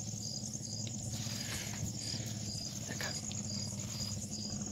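Crickets and other night insects calling: a continuous high trill with a separate short chirp repeating about twice a second, over a steady low hum.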